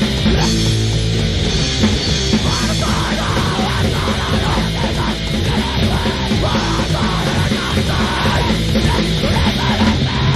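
Loud, dense grindcore music with yelled vocals.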